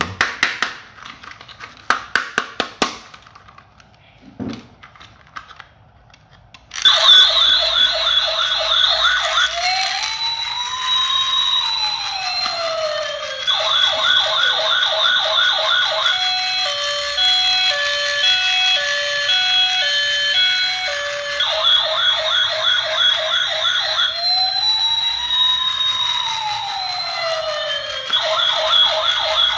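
Electronic siren from a battery-powered toy police car's sound unit. It cycles through a fast warbling yelp, a slow rising-and-falling wail, and a stepped pattern of high and low beeping tones. A few clicks and taps come first, and the siren starts about seven seconds in.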